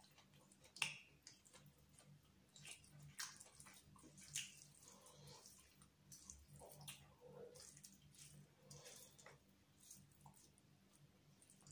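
Faint wet eating sounds: fingers squishing and mixing biryani rice on a steel plate, with chewing and lip smacks. Scattered small clicks run throughout, with sharper ones about a second in and around four and a half seconds.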